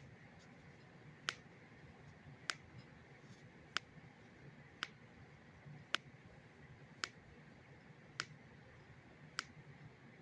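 Loud clicking from a person's left foot as it is rotated: nine sharp clicks, about one every second and a bit, at an even rhythm.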